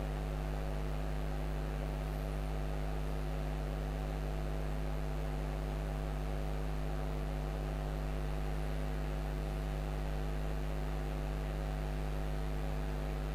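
Steady electrical mains hum picked up by the recording: a constant low buzz with its overtones, unchanging throughout.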